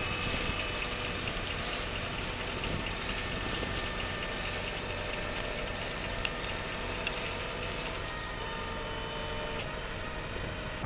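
Tractor-mounted leek harvester at work, its engine and lifting machinery making a steady drone.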